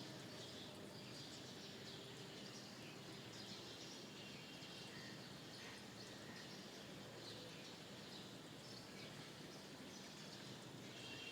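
Faint, scattered chirps and calls of several small birds over a steady background hiss.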